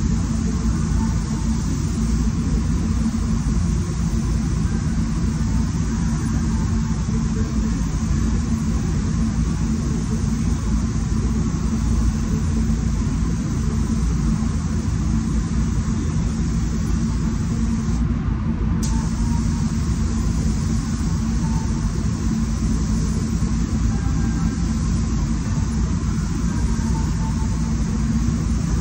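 Automotive paint spray booth's ventilation running: a steady low rumble of fans with an even rush of moving air.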